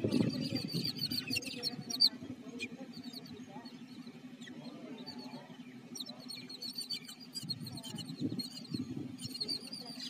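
A flock of yellow-billed babblers chattering: rapid runs of short repeated notes, busiest in the first couple of seconds and again from about six seconds on. A low steady hum runs underneath.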